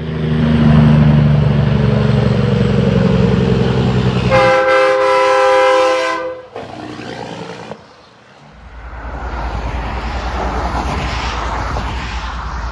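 A deep engine rumble, then an air horn sounds a multi-note chord for about two seconds and cuts off sharply. After a short lull, steady road traffic rumbles past from about eight seconds in.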